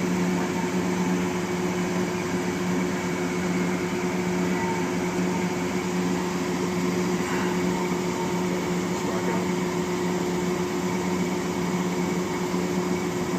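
Okamoto CNC cylindrical grinder running, a steady electric machine hum with a constant low tone over a soft whir.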